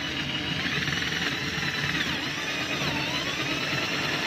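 Electric drill with a twist bit boring through an epoxy-laminated plywood deck, running steadily. The motor whine dips in pitch twice as the bit bites.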